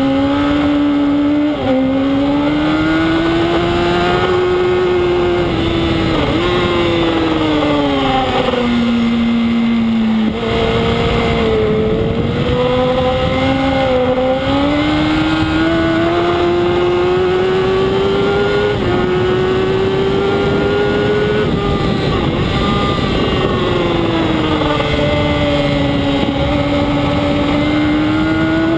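Yamaha R1 racing motorcycle's inline-four engine running hard at race speed. Its pitch rises and falls slowly, with a few brief dips.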